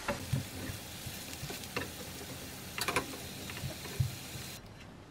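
Sliced eggplant and lotus root sizzling in oil in a frying pan, with several sharp clicks of tongs against the pan as the slices are turned. The sizzle drops away near the end.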